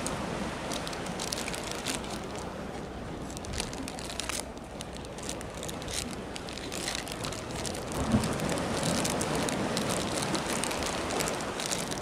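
Steady seaside background noise, a hiss of wind and water, with frequent small crackles and clicks scattered through it.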